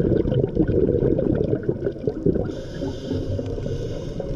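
Muffled underwater gurgling and bubbling: a low, irregular rumble with no clear rhythm.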